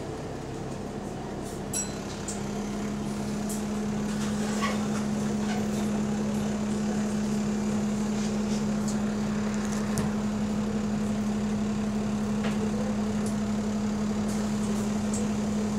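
Bus engine cooling fan running with a steady low drone that comes in early and grows louder about two seconds in, holding level over the bus's engine and road rumble, with a few light rattles.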